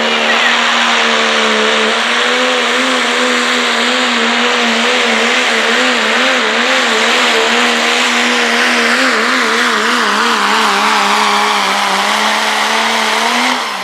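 Diesel pickup truck engine held at full throttle while pulling a weight-transfer sled down the track, turbo and exhaust hissing loudly over a steady high engine note. The pitch wobbles rapidly in the middle of the pull as the truck bounces under load, then drops away at the very end as the driver lets off.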